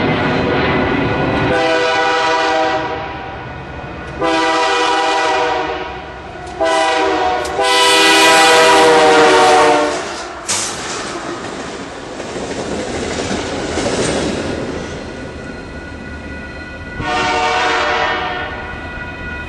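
Air horn of a Canadian Pacific GE AC44CW diesel locomotive leading a light-engine move, sounding the grade-crossing signal as it passes: two long blasts, a short one and a long one, the last the loudest. It is followed by the rumble of the locomotives and their wheels clicking over the rail joints, and another horn blast near the end.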